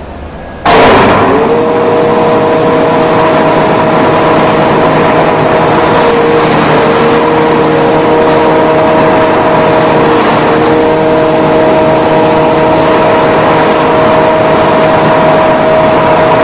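A mini hammer mill starts up about a second in, quickly coming up to speed with a short rising whine. It then runs steadily with a loud, even mechanical hum and whir.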